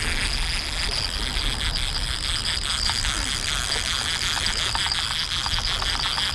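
Rain drops ticking irregularly on the camera, over a steady hiss of falling rain and a low wind rumble on the microphone.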